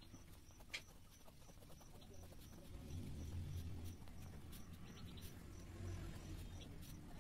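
Ballpoint pen drawing on paper: faint scratches and a sharp tap about three-quarters of a second in, over a steady low hum that grows louder a few seconds in.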